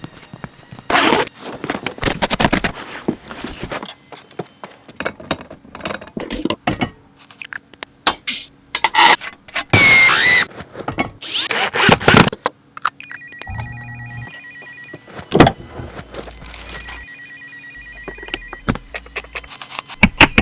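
Hand tools and metal parts clanking, knocking and scraping during a BMW 7 Series strut replacement, with a short squeal about halfway through. A pulsing electronic ringing tone sounds twice in the second half.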